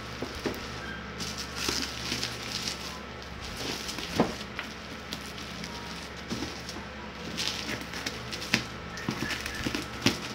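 Plastic bubble wrap crinkling and crackling as it is cut open with scissors, with irregular snips and clicks.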